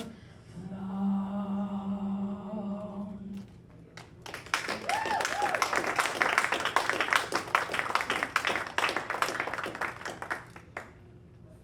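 The last sung note of a folk song held for about three seconds, then audience applause with a brief whoop, dying away near the end.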